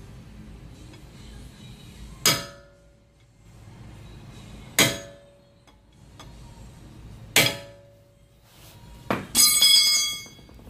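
Sharp metal-on-metal knocks with a ringing tail at the CV axle nut on the front wheel hub: three single knocks about two and a half seconds apart, then a quick flurry of ringing strikes near the end. They come from tightening the axle nut with a hand tool and then hitting it down to lock it in place.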